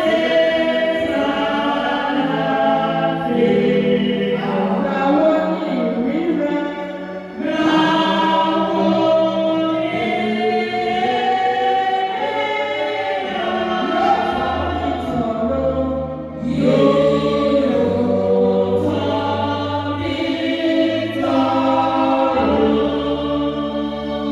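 Choir singing a gospel hymn in harmony, in long held phrases that break briefly about seven and sixteen seconds in.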